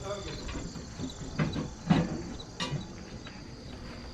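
Insects, crickets, chirping steadily, with a few short knocks, the loudest about two seconds in.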